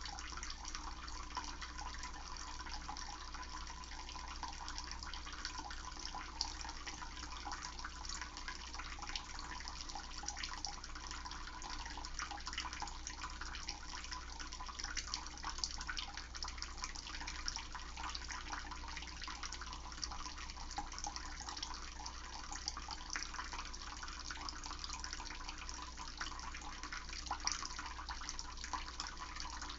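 Running water, a steady splashing rush with a low hum beneath it.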